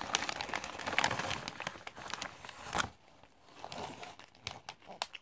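A hand rummaging inside a plastic crisp packet of Popworks popped crisps, the packet crinkling and crackling, dying down about three seconds in as a crisp is pulled out.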